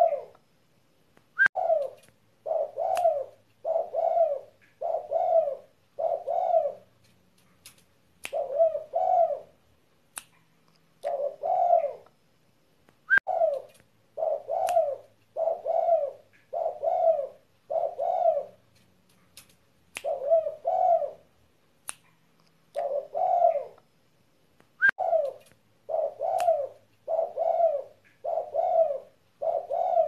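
Spotted dove (derkuku) cooing. Low coos repeat about once a second in runs of several, broken by short pauses.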